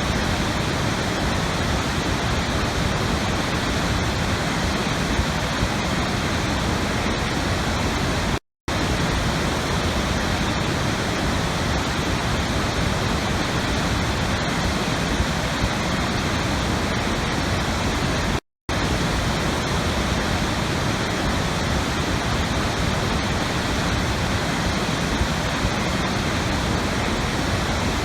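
Steady rushing water with no change in level, cutting to silence for a split second twice, where a short recording loops.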